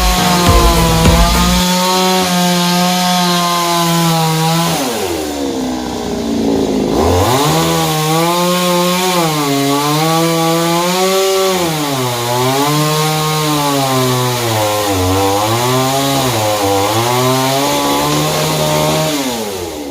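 Two-stroke chainsaw running at high revs while cutting wood. Its pitch sags deeply about five seconds in, then recovers and keeps dipping and rising as the chain bites and eases.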